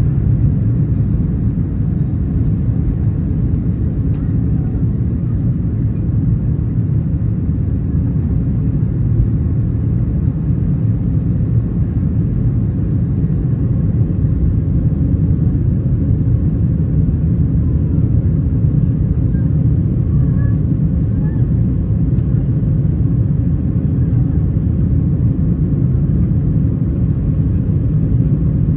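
Cabin noise of a Boeing 737-800 with its CFM56-7B turbofans at high thrust, heard from a window seat by the wing: a steady, loud low rumble as the jet finishes its takeoff roll and climbs away.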